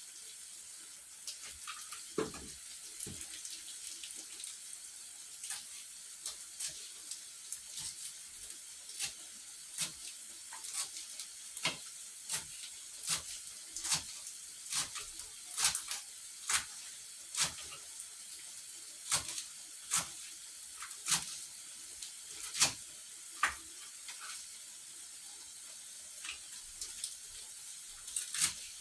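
Knife slicing through rolled collard greens and striking a cutting board, one steady cut a little faster than once a second, with a short pause a little after the middle.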